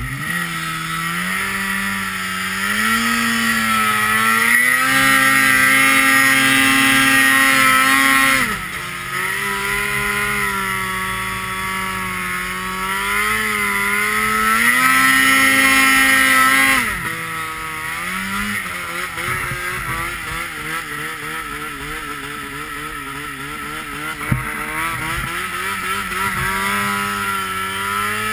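Snowmobile engine revving up and held at high revs for about four seconds twice, dropping sharply each time, then running at lower, wavering revs. A hiss of track and snow rises with the high revs.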